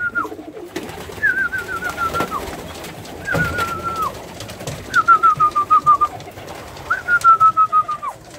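Pigeons in a loft: a high, thin whistled call that starts high and steps down in a stutter, each about a second long, repeated four times about two seconds apart, over faint cooing and wing flaps.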